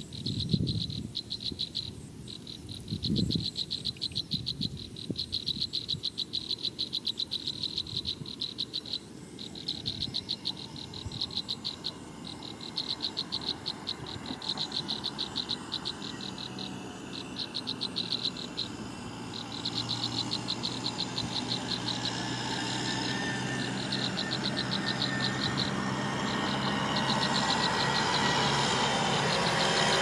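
Rapid trains of high-pitched pulsed trilling calls, each about a second long, repeating with short gaps, with a couple of low thumps in the first few seconds. Over the second half a motor vehicle's engine comes in and grows steadily louder.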